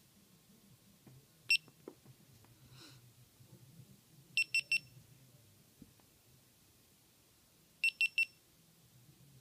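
GoPro Hero3+ Black camera beeping: one high beep about a second and a half in, then three quick beeps near the middle and three more near the end, the last set as the camera comes back up on its start-up screen, the sign of a camera that shuts off and restarts instead of staying on. A soft click just after the first beep.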